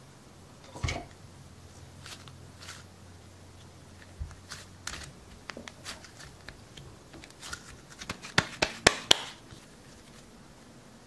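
Hands kneading and squashing Play-Doh modelling dough: faint sticky rustles and small clicks, a low knock about a second in, and a run of sharper clicks and taps around eight to nine seconds.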